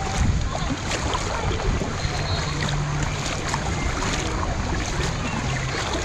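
Water sloshing and lapping right at the microphone as it rides at the surface of a shallow lazy river: a steady rush with many small splashes.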